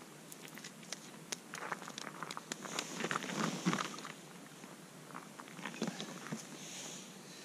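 A small freshly caught fish flapping on the ice, a quick run of light slaps and taps, then the rustle of heavy winter clothing as the angler leans forward, loudest a few seconds in.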